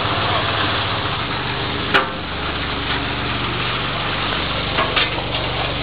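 Electric-motor-driven small-scale mining machine running steadily: a low motor hum under an even hiss of gravel and water churning in its chamber. There is a sharp knock about two seconds in and a couple of clicks near the end.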